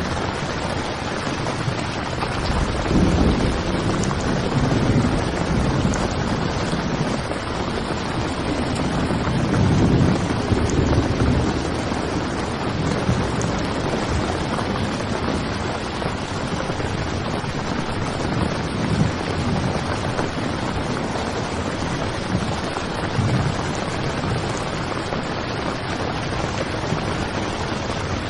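Heavy rain falling on a tent: a steady hiss, with deep low swells a few times.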